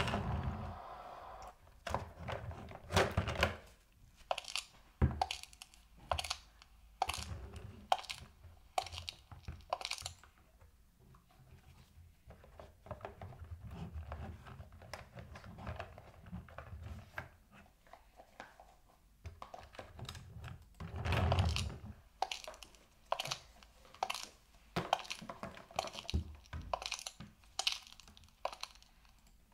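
Irregular clicks, knocks and rustling of small objects being handled, with a few duller thuds, such as toys being moved and set down.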